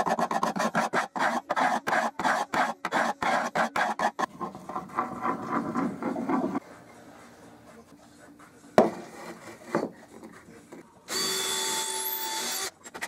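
Scraper dragged in quick repeated strokes across a block board panel, taking off the old finish, for the first six seconds or so. Then a quieter stretch with a single knock, and near the end a cordless drill running for about a second and a half, driving a screw into the board.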